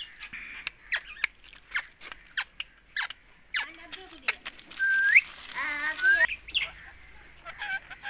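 Rose-ringed (Indian ringneck) parakeet calling: a quick run of short, sharp chirps, then a rising whistle and warbling chatter about halfway through.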